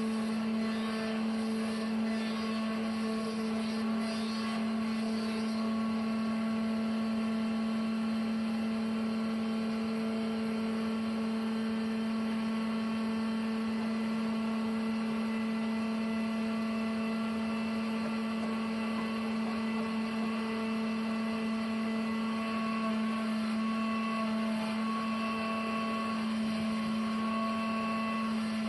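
Sawmill machinery running steadily with a constant, even hum.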